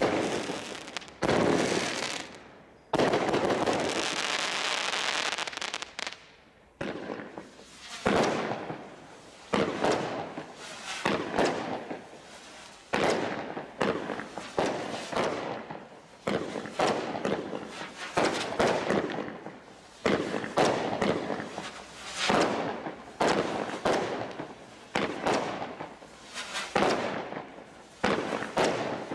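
Consumer fireworks going off. About three seconds in, a continuous crackling hiss runs for about three seconds, followed by a steady series of sharp bangs, roughly one a second, each with a short ringing tail.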